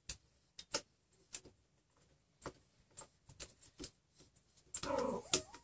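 Scattered, irregular light clicks and taps of hard plastic and metal parts as a printed Greg's extruder is handled and its stepper motor mount is tightened.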